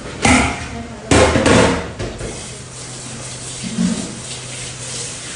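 Kitchen clatter: a loud knock, then a louder cluster of bangs about a second in, like cookware or utensils being set down or knocked on a counter, over a steady low hum.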